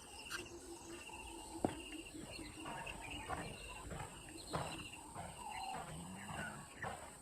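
Natural wild ambience: a steady, high-pitched insect drone, with short chirps repeating every second or so and scattered bird calls.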